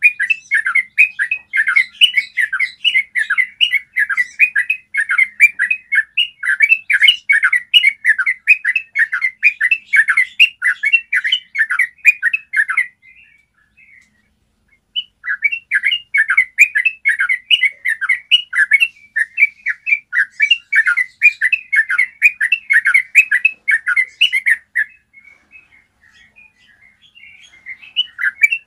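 Yellow-vented bulbul singing a long rolling song of rapid repeated notes, several a second. It breaks off for about two seconds midway, then resumes, and thins to a few faint notes near the end before starting up again.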